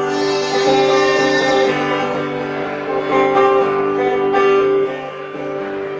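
Acoustic guitar playing an instrumental break between the verses of a folk ballad, strummed and picked with long held notes above it.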